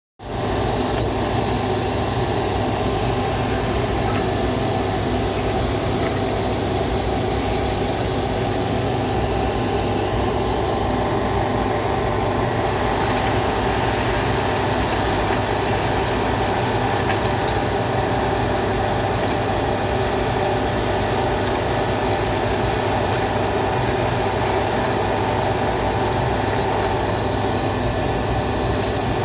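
A spinning machine running steadily with a grinding noise, a constant high whine over a low hum.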